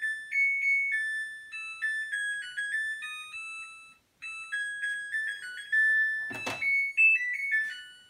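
Samsung EcoBubble washing machine playing its electronic beeping melody as the calibration cycle ends and the machine switches off. It is a tune of short, clean, decaying notes with a brief pause about halfway, and a single sharp click about three-quarters of the way through.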